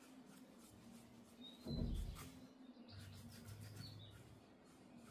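Faint strokes of a flat brush on watercolour paper, with one soft low thump about two seconds in and a couple of faint, short high chirps.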